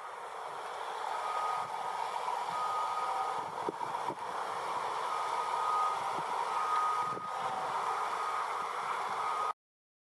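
A construction vehicle's reversing alarm beeps at one steady pitch, roughly every second and a half, over a steady rumble of machinery. The sound cuts off suddenly near the end.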